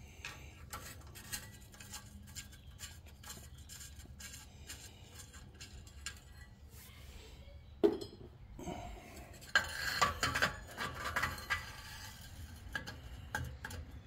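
Metal clinks and scraping of hand tools on the bolts of an ATV's factory exhaust tip as it is unbolted and worked off the muffler: scattered light clicks, a sharper knock about eight seconds in, then a busy run of clinks and scraping about two seconds later.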